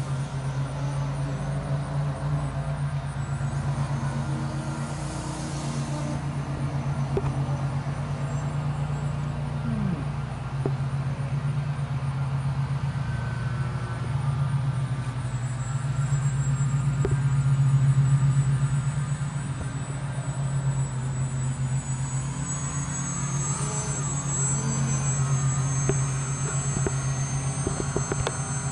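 Scorpion SII-2208 brushless electric motor and APC 9x4.7 propeller of a small foam RC delta-wing plane buzzing as it flies fast passes, with a high whine and its pitch bending as it goes by late on. Under it runs a steady low rumble, loudest about two-thirds of the way through.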